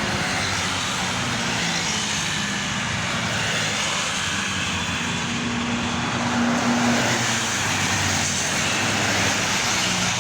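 Highway traffic: a steady rush of tyre and engine noise from vehicles going by at speed. A low engine hum stands out a little past the middle, where it grows slightly louder.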